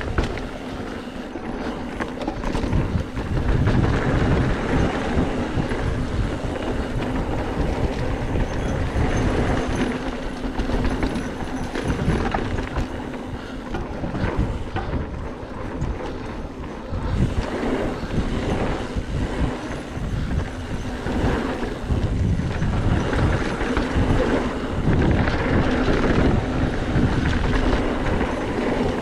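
Mountain bike riding fast down a dirt singletrack: a continuous rumble of knobby tyres on the ground, with the bike rattling and knocking irregularly over bumps.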